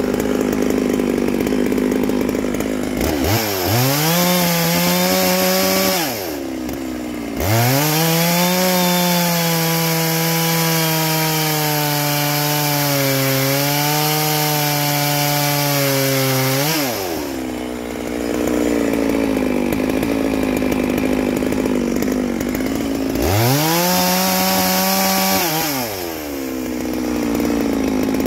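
Neo-tec NS892 two-stroke chainsaw, a Stihl MS660 clone with a cannon muffler, running at full throttle and cutting into a log. The engine pitch drops back briefly about six seconds in and again near the end before revving up again.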